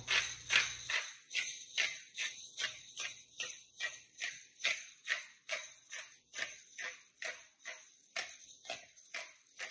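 Hand-twisted pepper mill grinding peppercorns, a steady run of short gritty crunches at about three twists a second.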